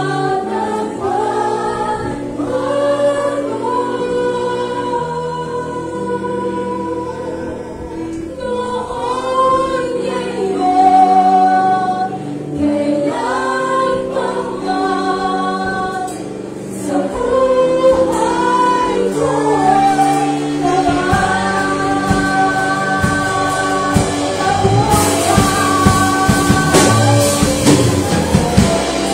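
Live worship band playing a gospel song: a woman leads the singing into a microphone with others singing along, over electric guitars and keyboard. The drum kit comes in a little over halfway through, with cymbals crashing near the end.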